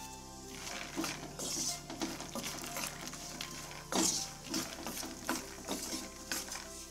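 Peanuts being stirred in hot oil in a nonstick frying pan with a spatula: repeated, irregular scraping and rattling strokes of the nuts and spatula against the pan, the loudest about four seconds in.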